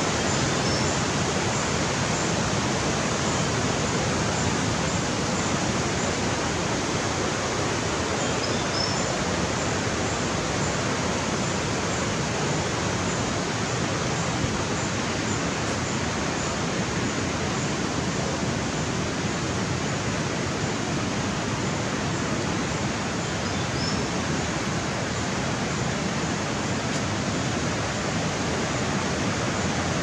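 Steady rush of the Periyar river's white water over rocks, a constant even roar. A few faint high chirps sit on top of it about a second in, near nine seconds and near the end.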